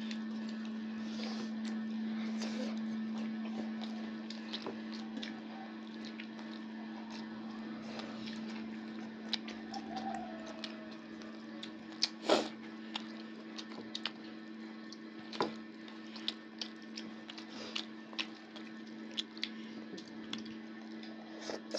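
Close-up eating sounds: hands squishing and mixing rice on stainless steel plates, with chewing and many short scattered clicks and clinks, the sharpest about 12 and 15 seconds in. A steady low hum runs underneath.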